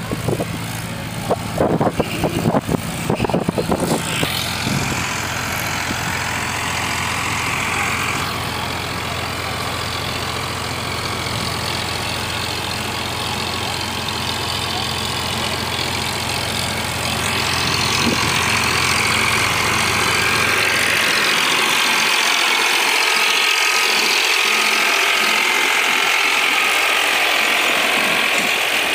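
Diesel tractors running under load with PTO-driven rotavators (rotary tillers) churning soil, a steady gear clatter over the engine hum. There are a few sharp knocks in the first few seconds. Past the middle, the rotavator's rattle and soil hiss become the loudest part, close by.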